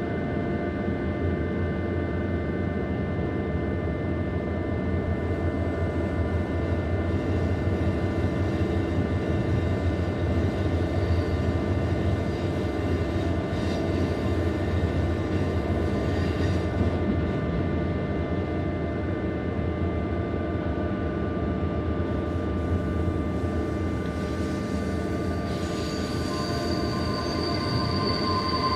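Bernina line train running downhill with a steady rumble, its wheels squealing in several steady high tones, the squeal growing stronger near the end.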